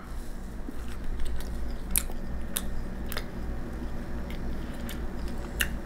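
A person chewing a mouthful of soft egg-white protein bread, with scattered short mouth clicks over a low steady hum.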